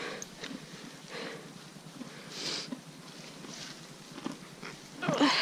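A horse nosing into hay on the ground, sniffing, with faint rustling and small ticks. A short pitched vocal sound comes near the end.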